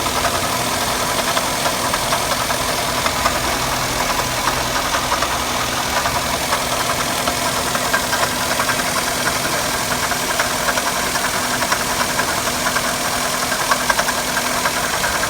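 Daihatsu Tanto L350's three-cylinder kei engine idling steadily with a rattle from the water pump, whose pulley is vibrating: the pump is failing and also leaking coolant.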